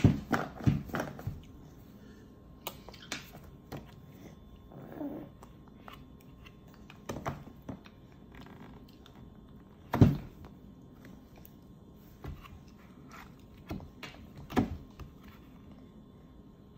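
Scattered taps and slaps of a baby's hands on a plastic high-chair tray while feeding, a quick run of them right at the start and the loudest about ten seconds in, with a short baby vocal sound around five seconds in.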